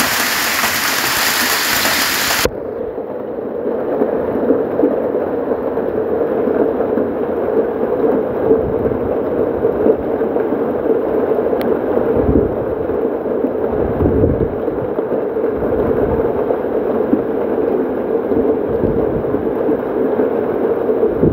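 Hail pelting a paved yard in a dense, continuous clatter of small hits. About two and a half seconds in, the sound abruptly turns duller as its high hiss drops away.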